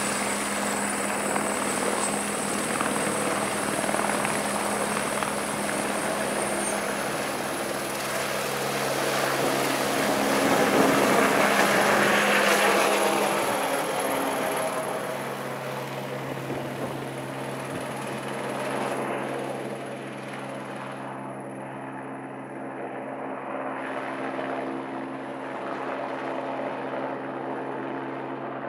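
Eurocopter AS350 B3e Écureuil single-turbine helicopter taking off: a steady high turbine whine over rotor and engine noise that swells to its loudest around the middle as it lifts off, then fades as it climbs away.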